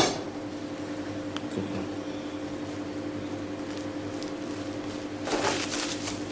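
Steady low hum of kitchen machinery, with a brief crackling rustle of cling film about five seconds in as the wrapped salmon roll is handled and lifted.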